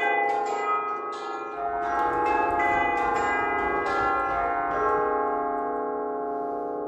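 Church tubular bells struck one after another by rope-pulled hammers, about two strikes a second, ringing through the notes of the eight-bell scale. The strikes stop about five seconds in and the bells ring on and fade away.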